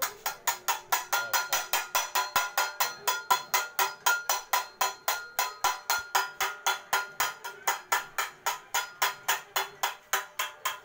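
A small handheld metal object rung rapidly by hand, about five strikes a second in a steady rhythm, each strike giving a short bright metallic ring.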